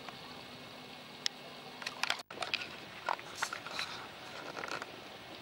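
Faint outdoor harbour ambience: a steady background hiss with scattered short bird calls. The sound drops out briefly about two seconds in.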